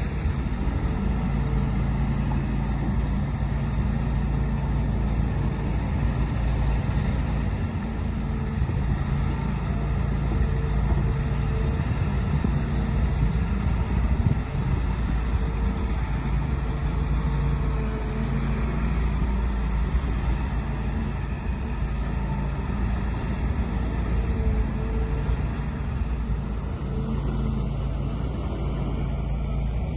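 An engine running steadily at an even pitch, with a constant low rumble.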